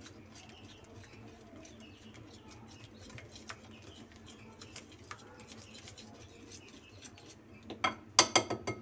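Wire whisk stirring a thick yogurt-and-spice marinade in a ceramic bowl: a soft wet scraping with faint clicks. Near the end come several sharp clinks of the metal whisk against the bowl.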